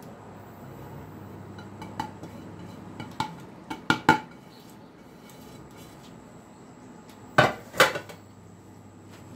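A porcelain plate clinking and knocking against a saucepan as flour crumbs are tipped off it into the pan: a few light clinks between about two and four seconds in, then two louder knocks near the end.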